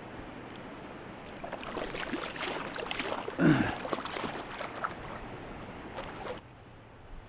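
Water splashing and sloshing as a rainbow trout is let go by hand at the surface, with one louder splash about halfway through as the fish kicks free. The splashing stops abruptly about a second before the end.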